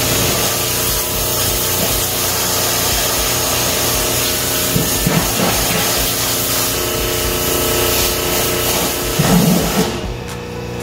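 Pressure washer jet blasting onto a steel truck rim, a loud steady hiss that cuts off near the end.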